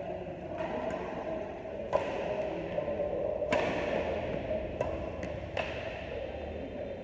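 Badminton rackets hitting a shuttlecock during a doubles rally: a string of sharp hits roughly a second apart, the loudest two to three and a half seconds in, over a steady background hum.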